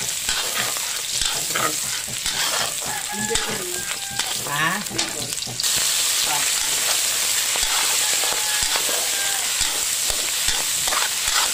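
Chopped shrimp and minced aromatics sizzling in hot oil in a steel wok, with a metal spatula scraping and stirring. The sizzle gets suddenly louder a little past halfway.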